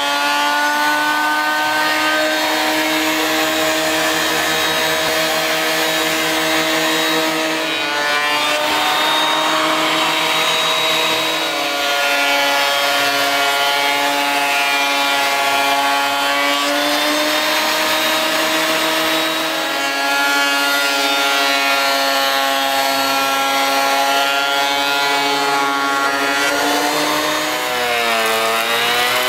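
Craftsman benchtop thickness planer running and planing a 2x10 board: a steady high motor whine over the hiss of the cutter head shaving wood. The pitch shifts and dips briefly several times.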